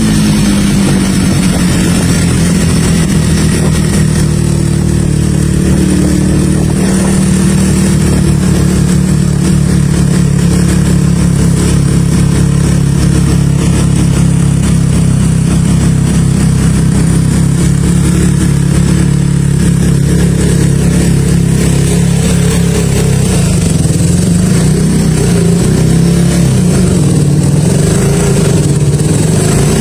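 1976 Yamaha XS360's parallel-twin engine running under way on a ride. Its pitch drops in the first second, then it holds a steady cruising note, wavering a little near the end.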